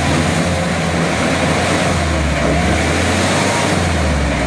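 4x4 engine running steadily under load, pulling a 4x4 stuck in mud on a tow strap.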